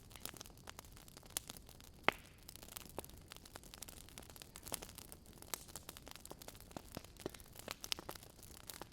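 Campfire crackling, with irregular sharp pops; the loudest pop comes about two seconds in.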